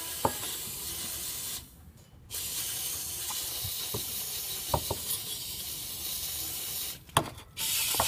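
Aerosol can of carburettor cleaner spraying in long hissing bursts, with short breaks about two seconds in and again near the end.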